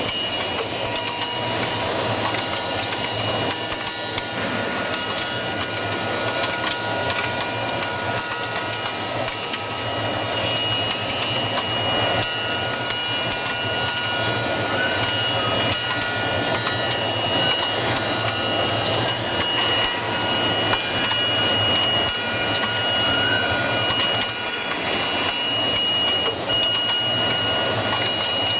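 TAJMAC-ZPS MCV gantry machining centre cutting metal: continuous machining noise with a steady high-pitched whine and a low hum underneath.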